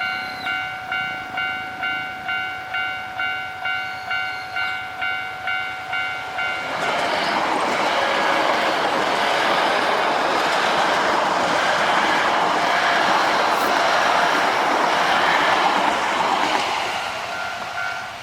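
Japanese railway level-crossing alarm ringing, a repeating electronic ding about twice a second. About seven seconds in, an eight-car Osaka Metro 66 series electric train passes at speed. Its wheel and running noise covers the alarm for about ten seconds, then dies away near the end.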